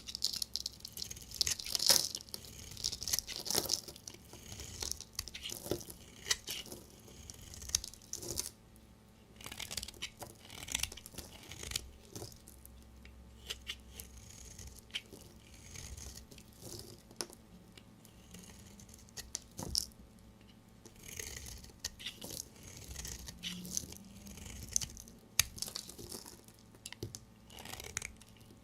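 Bars of soap being cut with a knife: irregular crunching and scraping cuts with small clicks, in uneven bursts, strongest in the first few seconds.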